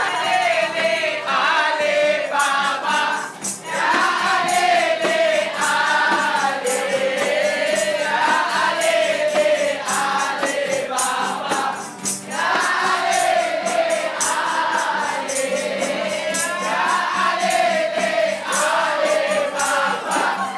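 Many voices singing together in chorus over a steady rhythmic beat of sharp strokes.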